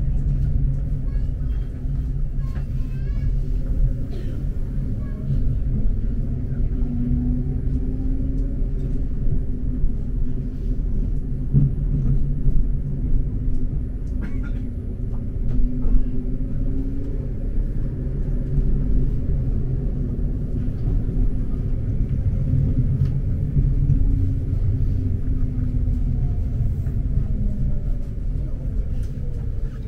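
Electric tram running, heard from inside the car: a steady low rumble with a faint motor whine that rises and falls in pitch, and a falling whine near the end as the tram slows.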